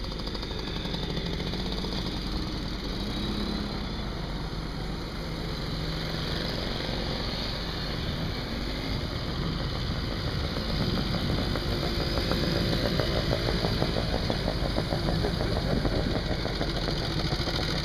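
Small engines of vintage mopeds and autocycles running as the riders pass one after another, getting louder from about eleven seconds in.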